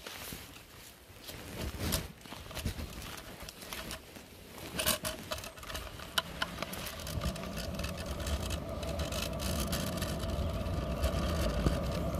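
Razor kick scooter being pushed off and ridden on asphalt: a few scuffs and knocks on dry leaves at first, then a steady rolling rumble of the small wheels with a faint hum that grows louder through the second half.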